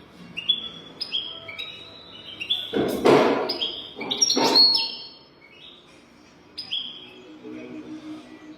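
European goldfinch singing a run of quick, high twittering notes that slide downward in pitch, with two louder, harsh rasping notes about three and four and a half seconds in.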